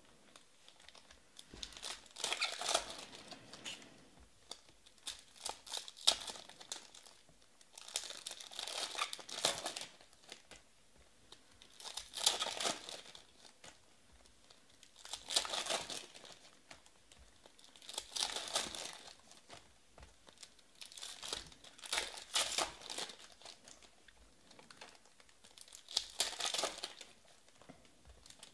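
Foil trading-card packs being torn open and their wrappers crinkled, in bursts every three seconds or so, one pack after another.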